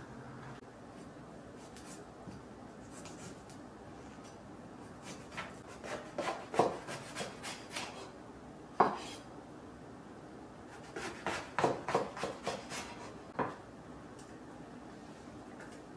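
Kitchen knife slicing through an eggplant onto a wooden cutting board: two runs of quick cuts and knocks, with a single sharp knock of the blade on the board between them.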